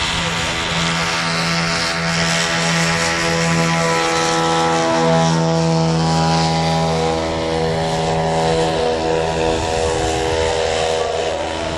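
Lazair twin-engine ultralight's two small engines and propellers droning at takeoff power as it rolls, lifts off and climbs away. The two engines' notes sit slightly apart in pitch and drift against each other, and the sound eases a little near the end.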